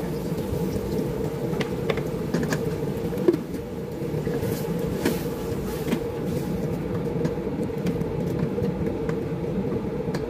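A wooden spoon stirs chicken in a stainless-steel pot, with scattered light knocks and scrapes against the pot, over a steady machine hum.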